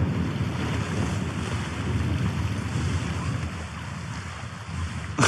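Gusty wind buffeting the camera's microphone outdoors in freezing mountain weather, with a single sharp click near the end.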